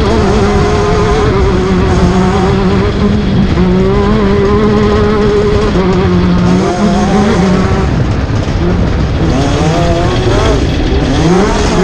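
Class 10 off-road race car engine running hard at high revs over a steady rush of noise. The pitch dips briefly about six seconds in, then drops further and climbs back up as it accelerates again near the end.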